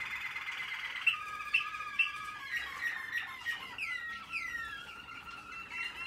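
American Singer canaries singing: a fast rolling trill, then three sharp, loud notes about half a second apart, followed by steady whistled tones and several quick down-slurred notes.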